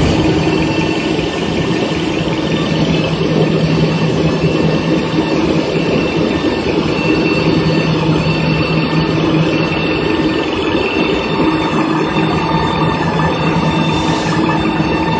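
Toilet tissue and kitchen towel rewinding line running at speed: a loud, steady machine hum with several constant tones, unchanging throughout.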